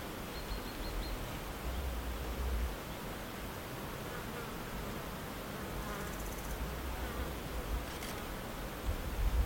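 A flying insect buzzing close to the microphone, with low rumbles about two seconds in and again at the end.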